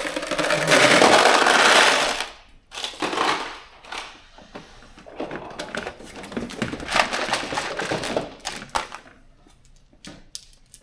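Metal bolts and nuts clattering and clinking as they are handled and sorted into kit trays. A loud rattling rush for about the first two seconds, then scattered clinks and rattles.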